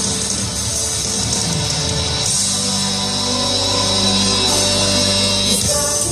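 Live band playing a gospel worship song: held bass notes under a steady wash of cymbals, the chord shifting about two and a half seconds in and again near the end.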